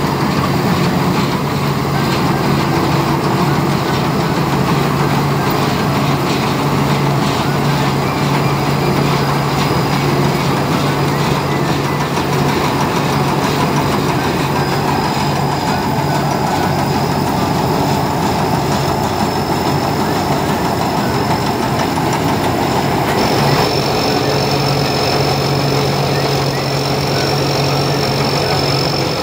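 Sincharoenyont (SCY) tracked rice combine harvester working through lodged rice: its engine and threshing machinery run steadily under load, a dense mechanical rattle over a low engine hum, with a thin steady high whine above it.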